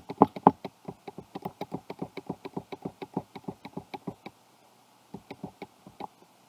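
Rapid, even clicking, about eight clicks a second, from scrolling down through a document on a computer. It stops about four seconds in, and a few more clicks follow near the end.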